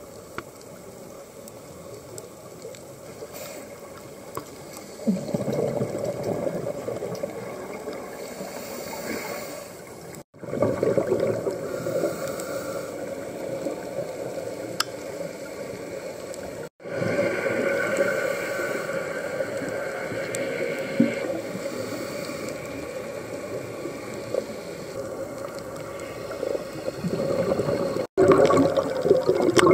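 Underwater camera recording of scuba breathing: air drawn through a regulator and exhaled bubbles gurgling, swelling and fading in waves, with three short breaks.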